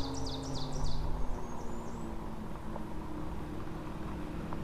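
Geared hub motor of a 500-watt e-bike whining steadily under load as it pulls slowly up a steep hill, its pitch sinking slightly. A small bird chirps a quick series of notes in the first second and again shortly after.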